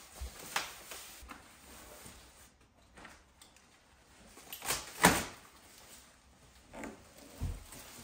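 Scattered knocks and thumps of heavy couch sections being carried in and set down on the floor, with the loudest thump about five seconds in and a duller low one near the end.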